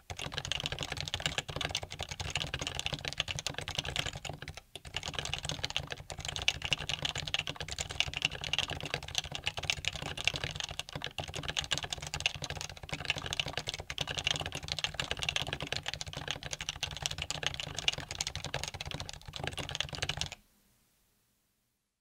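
Fast touch-typing on a Happy Hacking Keyboard Professional 2 with 45 g Topre rubber-dome switches, stock plastic case and keycaps, the keyboard set on a towel: a dense, even stream of key presses. It breaks off briefly about five seconds in and stops about a second and a half before the end.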